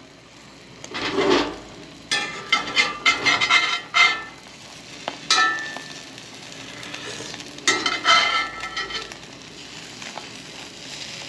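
Metal spatula scraping and clinking against a cast iron skillet in several bursts as eggs are folded and turned, over a steady sizzle of eggs frying.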